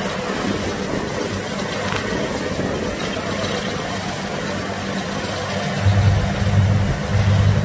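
Kubota DC-60 rice combine harvester running while cutting and threshing rice: a steady mechanical din from its engine and threshing gear. About six seconds in, a deeper pulsing hum comes in and it gets louder.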